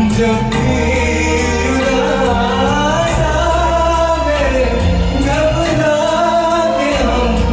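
Male vocalist singing a Hindi film song over instrumental backing with a steady beat, the voice gliding through a held melodic line.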